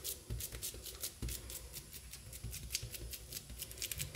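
A hand repeatedly pressing and rubbing moist coarse-semolina dough flat in a metal baking tray: a quick series of soft gritty pats and scratchy rubs, several a second, with dull low thuds.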